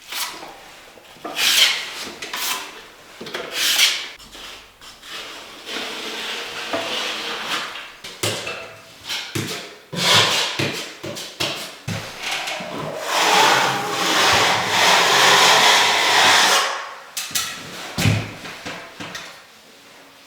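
A hand tool scraping over a rough, hard surface in repeated strokes, with a run of short knocks around the middle and a longer continuous scrape near the end.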